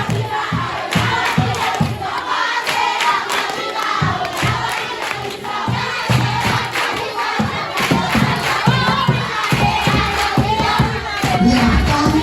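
A crowd of voices singing and cheering together over music.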